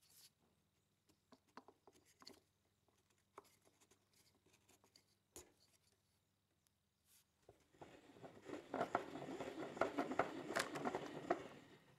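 A few light taps and knocks as a wooden block is handled, then, from about eight seconds in, about four seconds of dense crackling and scraping: a drill bit on a drill press cutting into wood, throwing chips.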